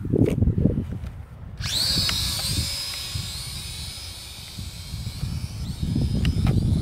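The Z-9 toy drone's small electric motors spin up with a sudden high-pitched whine about a second and a half in as it lifts off. The whine holds steady and slowly fades as it flies away, and a low rumbling noise comes back near the end.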